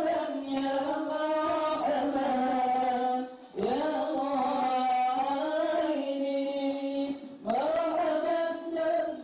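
Arabic devotional chant: a single voice sung in long, slowly bending held notes, breaking off briefly for breath twice, about three and a half and seven and a half seconds in.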